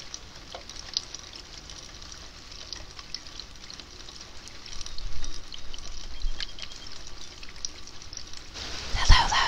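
Steady rain hiss with many small drops ticking through it, growing a little louder about halfway through. A single thump near the end.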